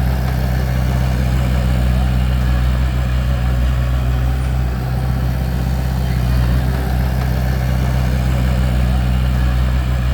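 Bulldozer's diesel engine running steadily, a deep even drone with no revving or pauses.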